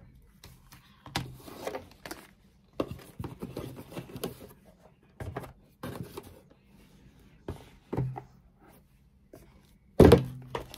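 Items being lifted out of a gift box and set down on a table: irregular rustling and light knocks, with one loud thunk near the end.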